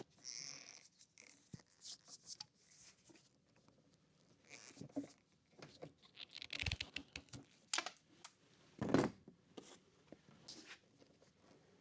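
Intermittent handling noises of wiring and tools being worked: short rustles, scrapes and small clicks, the loudest about nine seconds in.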